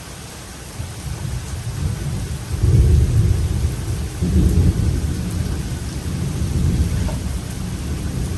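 A long roll of thunder over steady rain: the deep rumble builds about a second in, is loudest around three seconds in and again about four and a half seconds in, then keeps rumbling.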